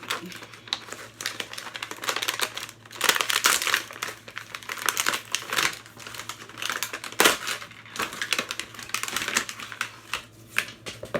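A product box and its plastic packaging being opened and handled: continuous crinkling and rustling with many quick clicks and taps, loudest in a few short flurries.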